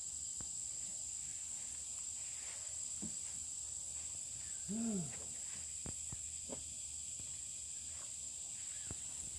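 Insects droning steadily at a high pitch, with scattered faint clicks and one short low voiced sound about five seconds in.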